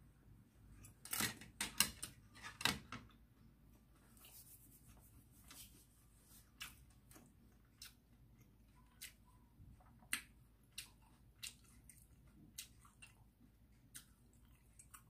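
Faint crunching and mouth clicks of someone chewing crisp okoy fritters, a few louder crunches in the first three seconds, then soft clicks about every two-thirds of a second.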